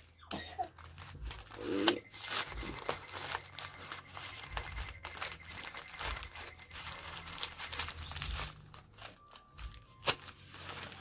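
Parcel packaging being handled and torn open, crinkling and rustling with many small irregular crackles and clicks.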